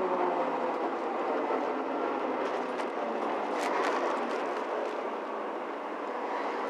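Mercedes-Benz Citaro C2 G articulated bus heard from inside while driving: the upright-mounted diesel engine's note falls during the first second, then settles into a steady running drone with road noise. A few short rattles come a little past halfway.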